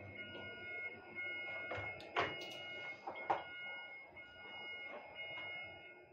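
Overhead crane running, heard from inside its cab: a steady whine of several held high tones over a machinery rumble, with two sharp metallic clanks about two and three seconds in.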